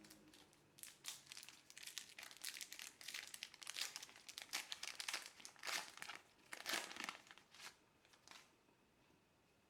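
Crinkling of a Panini trading-card pack wrapper being handled and torn open, in quick irregular bursts that fade out near the end.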